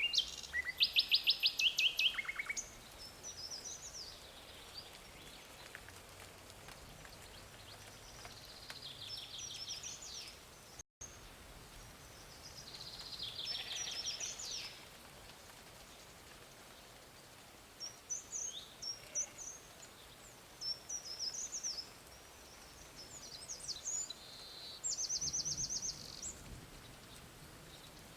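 Songbirds singing outdoors: several fast, high trilled phrases and scattered short chirps, separated by stretches of faint steady background hiss. The sound cuts out briefly about eleven seconds in.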